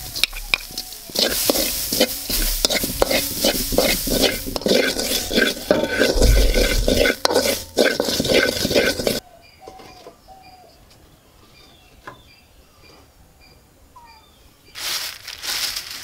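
Grated ginger being stirred and scraped with a spatula in a hot pan, sizzling, with many sharp scraping clicks; it stops about nine seconds in. A brief noisy burst follows near the end.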